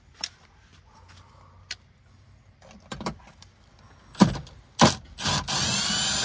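Light clicks and knocks of a 10 mm socket undoing a bolt and a plastic interior trim piece being worked loose. There are two loud knocks about four seconds in, followed by about a second of loud, steady noise near the end.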